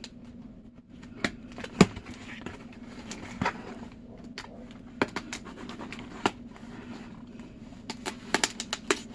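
Cardboard shipping box being opened and its packaging handled: scattered scratches, scrapes and sharp clicks, thickest near the end, over a steady low hum.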